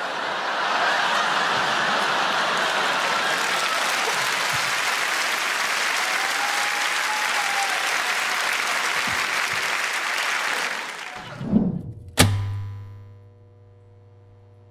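Large theatre audience applauding, a steady wash of clapping for about eleven seconds that then dies away. A short low swoosh and one sharp hit follow, ringing into a low steady hum with a few held tones.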